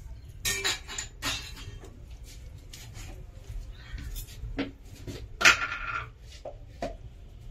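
Kitchen utensils knocking and clattering while turmeric goes into the pot of jackfruit in water: several sharp knocks, the loudest about five and a half seconds in.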